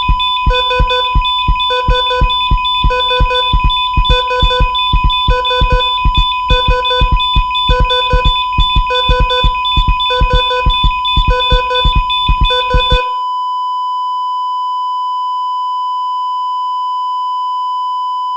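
Heart-monitor sound effect: regular pulsed beeps with low thumps, about one every 0.6 s, over a steady tone. About 13 seconds in the pulses stop and a single continuous flatline tone carries on, the monitor's signal that the heart has stopped.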